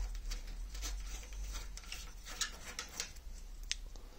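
Faint clicks and light scrapes of fingers turning the threaded solenoid body off a Siemens VDO diesel injector held in a vice, over a low steady hum.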